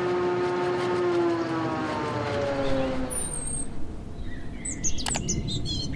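Logo sting sound effect: a held tone with several overtones gliding slowly down in pitch over a low rumble, fading out about halfway through. Birds chirp in the second half, with a few sharp clicks near the end.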